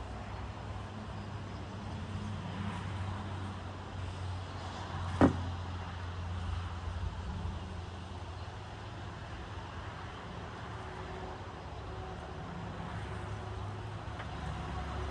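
A single loud knock about five seconds in, from a wooden beehive being lifted off a pickup's tailgate and set down on the ground, over a steady low rumble.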